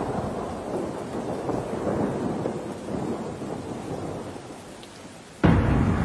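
Thunderstorm: thunder rumbling with rain, fading gradually over several seconds, then a sudden loud return of the rumble near the end.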